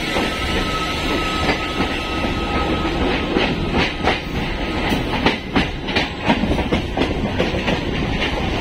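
Electric multiple unit (EMU) local train running, heard from on board: a steady rumble of wheels on track. From about three seconds in, the wheels clack rapidly and irregularly over the track.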